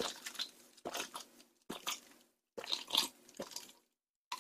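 A person gulping grape juice from a glass: five swallows, a little under a second apart.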